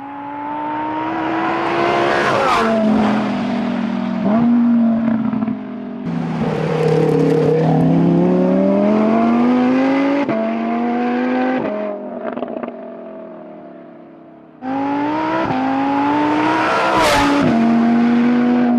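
Lamborghini supercar with a Novitec race exhaust accelerating hard through the gears: the engine note climbs, drops back at each upshift and climbs again. It sweeps close past twice, about two and a half seconds in and near the end. Separate runs are cut together, so the sound jumps suddenly in level twice.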